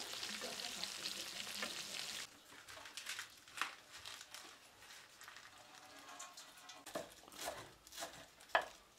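Bonito pieces frying in hot oil in a pan, a dense sizzle that cuts off about two seconds in. Then quieter rustling and scattered taps as lettuce is handled, with a knife chopping it on a wooden board near the end.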